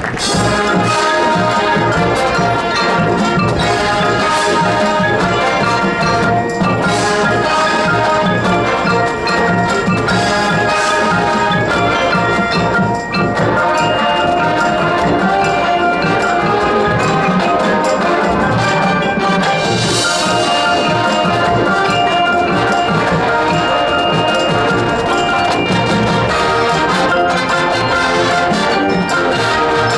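Marching band playing: brass chords and melodies over drums and pitched percussion, coming in suddenly right at the start, just after applause.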